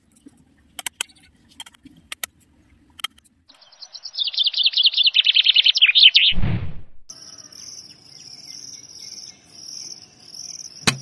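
A bird's rapid trill, sliding downward over about two seconds, then a brief low falling whoosh, followed by a cricket-like chirp repeating at an even pace. Faint scattered ticks come before the trill.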